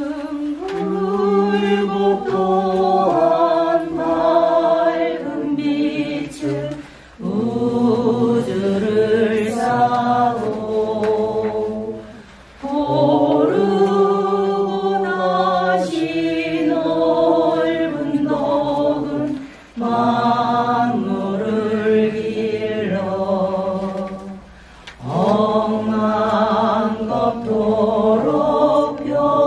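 Korean Buddhist liturgical chanting by monks and lay worshippers in unison, reading from the service book. The chant goes in long sung phrases of about five to seven seconds, each followed by a brief breath pause.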